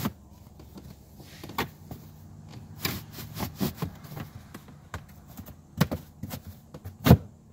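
A thin, flexible carbon fiber trunk liner panel being slid and pressed into place against a matching panel, giving a series of irregular knocks and clicks; the loudest knock comes near the end.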